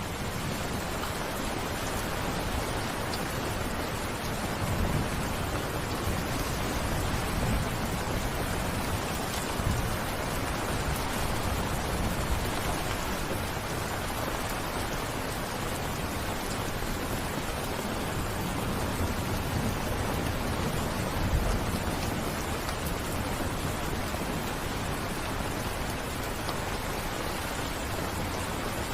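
Steady rain falling, an even hiss with scattered drops, and a few brief low rumbling swells.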